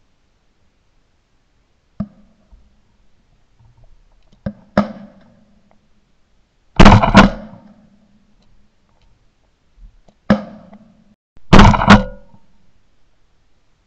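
Shotgun shots at flying doves: a few fainter shots, then two loud blasts about five seconds apart, each with a quick double crack and a short echo.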